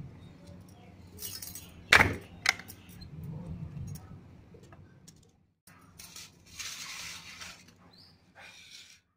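Hand-lever mango cutter chopping raw green mango: its hinged iron blade comes down through the fruit onto the wooden board with two sharp chops about two seconds in, among smaller knocks and handling sounds.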